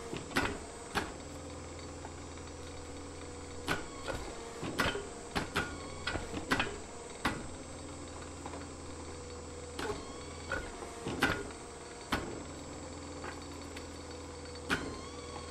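Hydraulic forging press humming steadily as a red-hot Damascus billet is squeezed corner-on between V-dies, with irregular sharp clicks and taps of the hot steel and its scale against the dies as the billet is turned.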